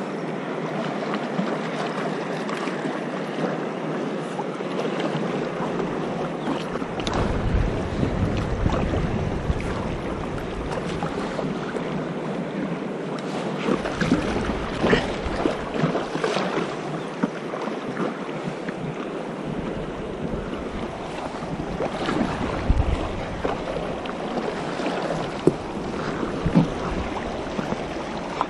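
Choppy river water rushing and splashing around an inflatable stand-up paddleboard, with occasional sharp splashes of paddle strokes. Gusts of wind buffet the microphone several times.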